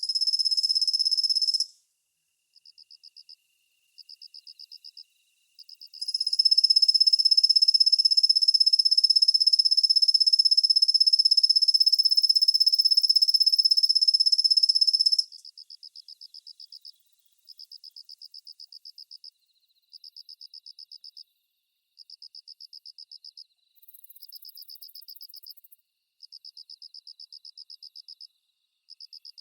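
Kusahibari cricket (Svistella bifasciata) singing a high-pitched trill. A long, loud trill runs from about six seconds in to about halfway through; before and after it come shorter, fainter trilled phrases of a second or two, repeated with brief gaps.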